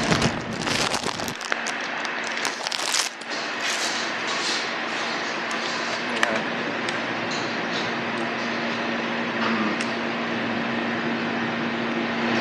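Plastic bag crinkling and rustling as it is handled for the first few seconds. Then a steady hum of kitchen equipment with a constant low tone, broken by a few faint clicks.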